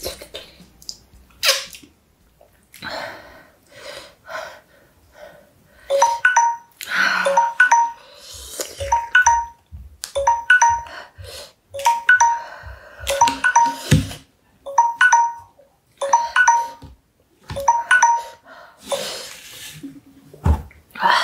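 Bright bell-like chimes ringing in quick succession, roughly every half second, mixed with short breathy noise bursts.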